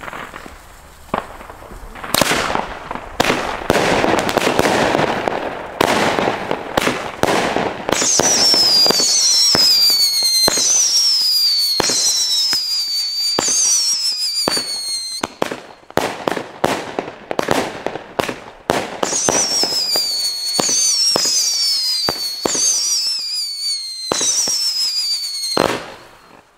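Panda Wind firework battery firing: a quick string of sharp bangs and cracks, then a long run of overlapping screaming whistles, each falling in pitch, mixed with more bangs. It stops just before the end with one last crack.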